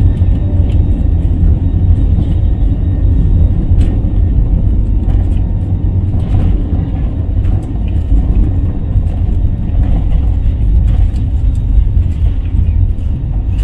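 Cabin noise inside an Airbus A320-family jet rolling along the runway: a steady, loud low rumble of the engines and wheels, with scattered light knocks and rattles.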